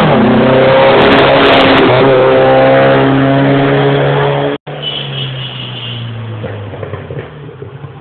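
Racing car engine running hard at high revs, loud, its pitch shifting about two seconds in. The sound cuts off abruptly about four and a half seconds in, then a quieter engine fades away.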